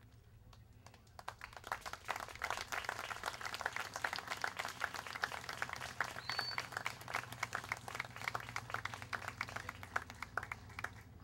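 A small crowd applauding, starting about a second in and dying away near the end.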